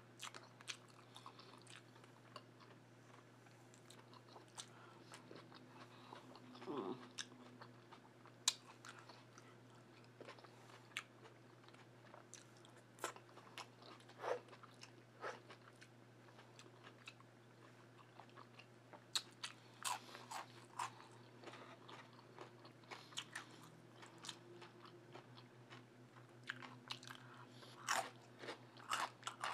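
A person chewing a mouthful of food close to the microphone, with irregular sharp clicks and smacks of the mouth, over a faint steady low hum.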